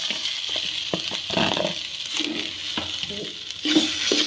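Steel spoon scraping and clinking against a plastic bowl and a black kadhai as coarsely ground cauliflower is pushed into hot ghee and spread around, with a steady high hiss of frying underneath.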